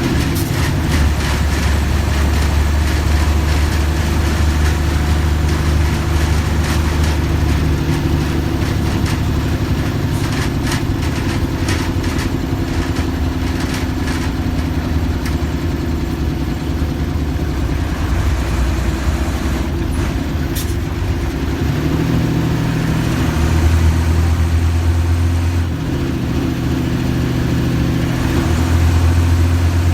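Mercedes-Benz OF-1315 bus's diesel engine running steadily, its low note shifting in strength a few times, with a spell of light clicks about ten to fifteen seconds in.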